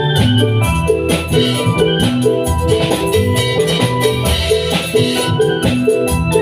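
Obrog street-ensemble music played loud through a sound system: a quick, repeating keyboard melody over bass and regular drum beats.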